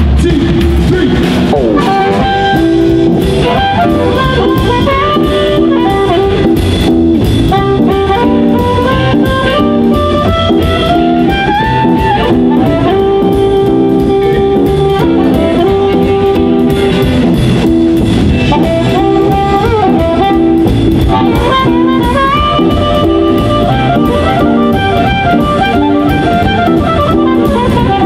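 Live blues band playing an instrumental passage: an amplified harmonica carries a sliding lead melody over electric guitars, upright bass and drum kit, at a steady loud level.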